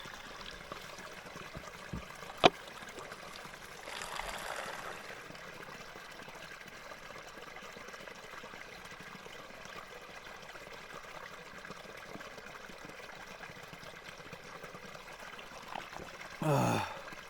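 A small stream trickling steadily while a water bottle is filled from it. There is one sharp loud click about two and a half seconds in, and a short falling sigh near the end.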